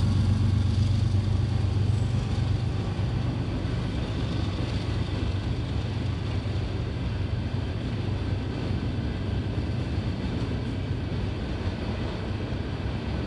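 Freight train of tank cars rolling past: a steady rumble and clatter of steel wheels on the rails, easing off a little as it goes.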